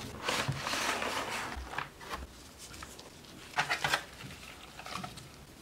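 Unboxing a model train car: a cardboard box opened and its clear plastic packaging handled, rustling over the first couple of seconds, then a few sharp plastic crinkles or clicks around four seconds in and again about a second later.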